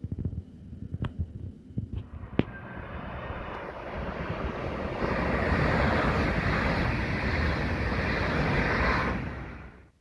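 Train passing close beneath: a few sharp knocks in the first seconds, then a rushing rolling noise that swells from about three seconds in, stays loud, and drops away just before the end.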